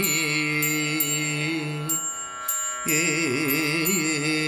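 Carnatic devotional music in raga Neelambari between sung verses: a held melodic note that breaks off about two seconds in, then returns with wavering, ornamented turns before settling on a held note again. Light metallic chime-like strokes sound over it.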